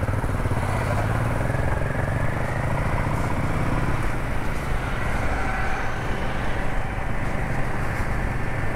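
Motorcycle engine running at a steady cruise, with wind and road noise over it.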